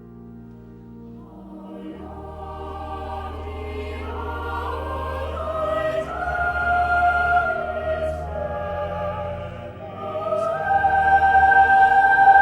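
Choral music with long held notes, starting quietly and growing louder, with a brief dip near the end before it swells again.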